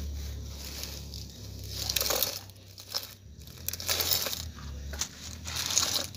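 Plastic wheels of a loaded toy log truck crunching and scraping through wet sand and mud in irregular bursts, with a low steady hum underneath.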